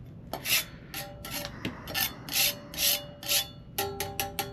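Repeated scraping strokes, about two a second, as thick caked-on grime is scraped off a metal power-supply chassis, with light metallic ringing. Near the end come a few quicker scrapes and clinks.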